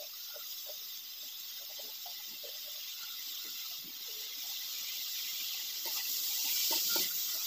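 Greens and vegetables sizzling in hot oil in a steel wok: a steady hiss that grows louder over the last few seconds.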